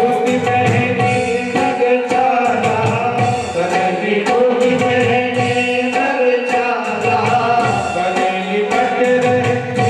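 Devotional aarti music: tabla drumming under a sung melody with sustained accompaniment.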